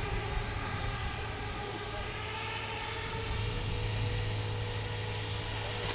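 Radio-controlled model hovercraft running across the water, its lift and thrust fans giving a steady whine over a low hum that swells a little about halfway through.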